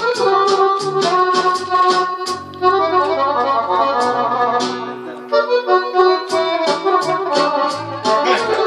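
Accordion playing a Romanian folk dance tune, with a steady beat of about four strokes a second under melody runs. The beat drops out briefly around the middle, leaving held notes, then comes back.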